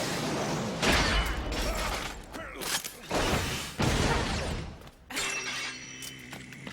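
Anime fight sound effects: three sudden noisy crashes, about a second in, near three and a half seconds and near five seconds, each trailing off over a second or so.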